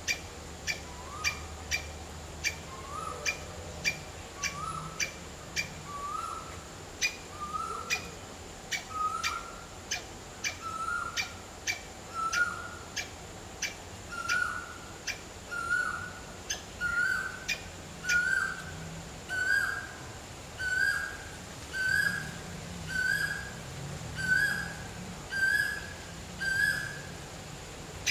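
A bird calling a long series of short upward-slurred notes, about one every second and a half, creeping higher in pitch and getting louder as the series goes on. Sharp clicks tick along behind it, quicker in the first part.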